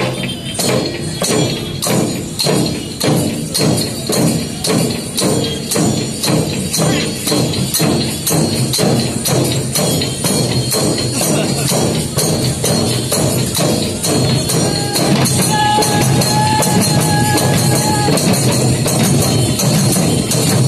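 Large barrel drums slung from the players' shoulders, beaten by a troupe of drummer-dancers. They keep an even beat of about two strokes a second that thickens into a dense, steady pounding in the second half. A held high tone sounds over the drumming near the end.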